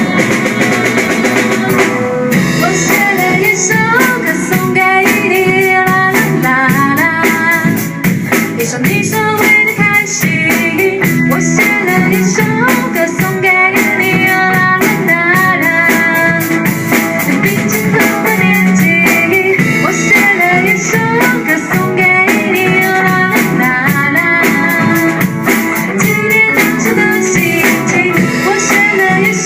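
A band playing an instrumental passage of a pop song on drum kit and guitar, with a lead melody line over a steady beat.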